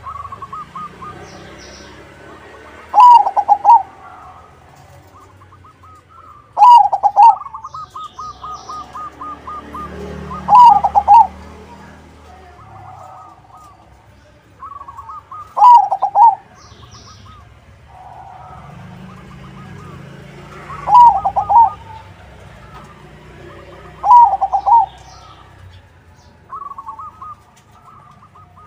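Zebra dove (perkutut), a crossbred local-Bangkok bird, singing its rolling coo: six loud phrases, each coming 3 to 5 seconds after the last. Between them run quieter, rapid trains of short notes, with faint high chirps over the top.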